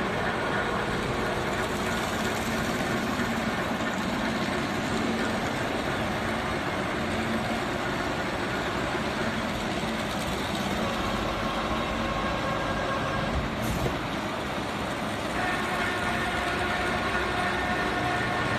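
SHANYI CNC vertical five-axis machining centre running, a steady mechanical hum and hiss with faint whining tones that come and go and change pitch. A single sharp click sounds a little past the middle.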